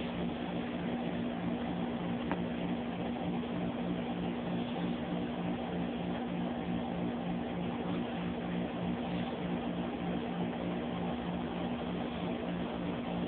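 Steady low hum with an even hiss beneath it, unchanging throughout.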